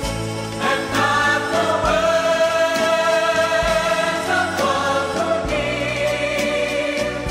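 Background music: voices singing together in long held notes with vibrato over a steady bass.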